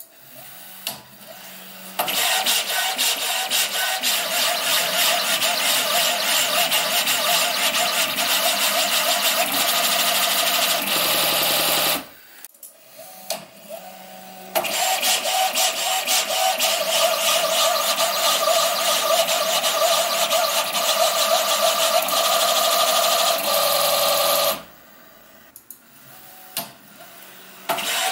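Hypercube-derivative CoreXY 3D printer making very fast travel moves: its stepper motors and belts buzz and whine as the print head shuttles back and forth. The sound comes in three long runs with short pauses between them, the last starting near the end.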